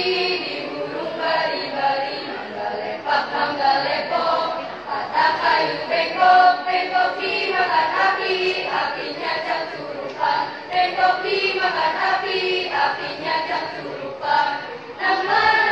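A school choir of young teenage boys and girls singing together without a break.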